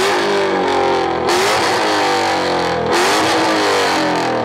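Dodge Challenger's engine revved hard through a loud exhaust. The pitch climbs near the start and again about three seconds in, falling back in between.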